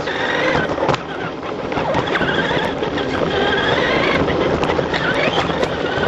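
Electric motor of a radio-controlled truck whining, its pitch rising and falling with the throttle, over the rattle and crunch of the truck running on dirt. A sharp knock about a second in.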